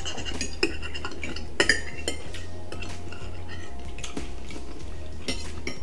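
Forks and spoons clinking against plates and bowls during a meal: a few light, separate clinks over a steady low hum.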